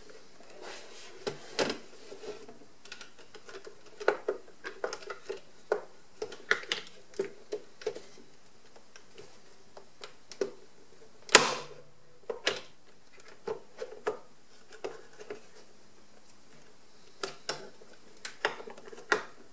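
Irregular plastic clicks and knocks as the main brush housing of a Roborock robot vacuum is worked into place, its corners pushed under the retaining protrusions. One louder knock comes about eleven seconds in.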